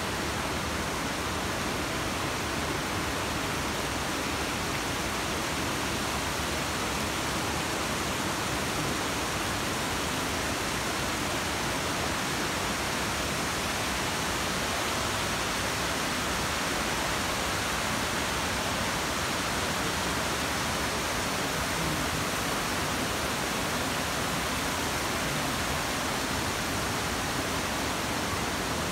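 Steady rush of a waterfall: an even hiss of falling water with no change throughout.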